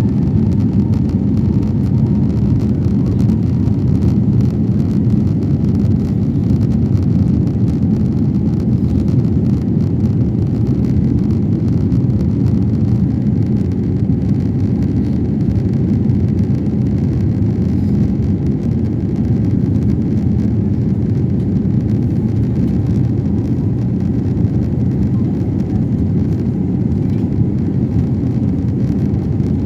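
Steady, loud engine and airflow noise inside the cabin of an Airbus A321neo jet airliner during its takeoff and climb-out.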